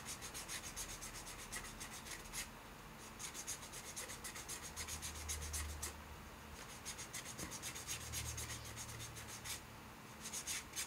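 A sanding sponge rubbed in quick back-and-forth strokes along the edge of a dried, unfired Art Clay Silver pendant, brittle like raw porcelain. The scratchy rubbing is faint and comes in runs of a few seconds with short pauses.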